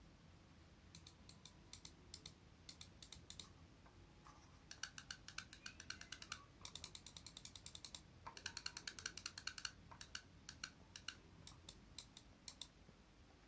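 Razer gaming mouse buttons clicking: a few scattered clicks, then fast runs of rapid clicks in the middle, then spaced single clicks again near the end.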